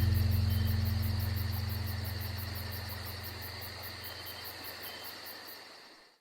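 The band's final low bass note rings out and slowly fades, with crickets chirping in a fast, even pulse over it; both cut off abruptly near the end.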